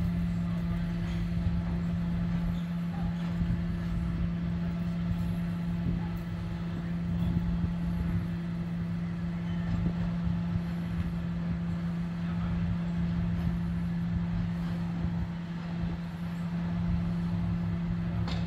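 Idling truck engine: a steady hum that holds one pitch, over a low rumble.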